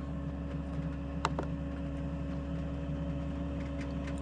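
Diesel air heater's blower fan running with a steady hum after a failed ignition; the heater is showing error 29, no flame. There is a single click about a second in.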